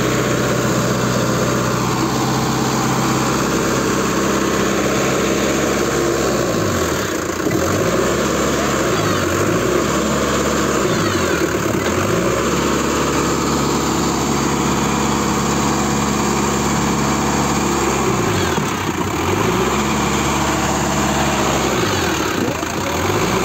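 Sonalika tractor's diesel engine running under load, pulling a loaded paddy trolley through a stubble field. Its revs dip and pick up again about five times.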